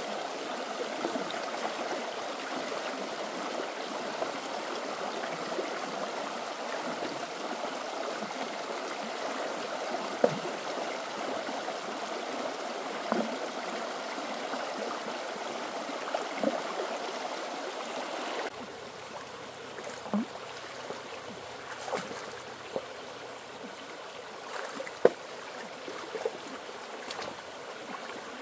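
Stream water flowing steadily, with occasional small splashes. About two-thirds of the way through, the sound cuts abruptly to quieter water with scattered splashes and knocks.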